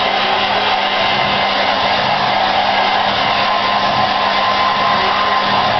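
Handheld hair dryer running steadily, a constant rush of air with a faint steady whine and hum under it.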